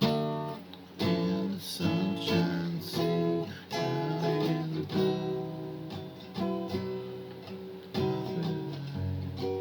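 Acoustic guitar playing a tune, with plucked notes and strummed chords ringing out about once a second.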